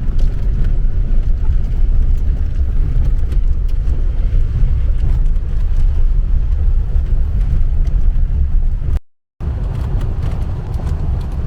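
Truck driving off-road over rough ground, heard from inside the cab: a heavy, uneven low rumble with many small rattles and knocks. The sound drops out completely for a moment about nine seconds in.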